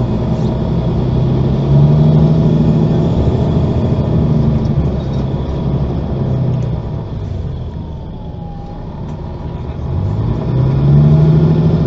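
Mercedes-Benz O530 Citaro facelift articulated bus's diesel engine heard from inside the passenger cabin, pulling as the bus accelerates. It eases off about seven seconds in, then pulls hard again near the end.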